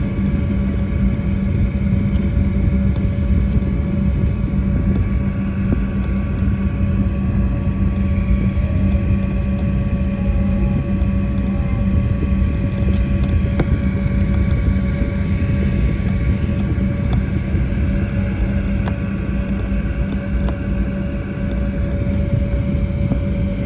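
Steady cabin noise of an Embraer E190 airliner on the ground before takeoff: a constant low rumble with a steady hum and fainter whining tones from the jet engines at low power and the air system.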